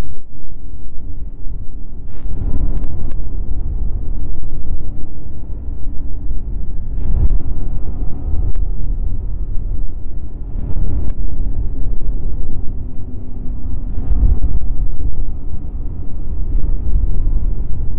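Snowmobile engine running steadily as the sled travels along a groomed trail, heard as a loud low rumble with wind on the microphone. A few sharp knocks come through at irregular intervals as the sled jolts over the trail.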